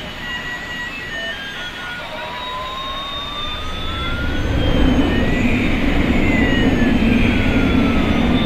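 Battery-operated toy airliner's electronic sound effect: a short beeping tune near the start gives way to a simulated jet-engine whine, one tone rising and another falling in pitch, with a rushing noise that swells about four seconds in.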